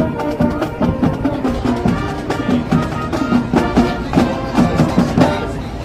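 Marching band playing for a dance routine: brass and drums with a steady beat, getting a little quieter near the end.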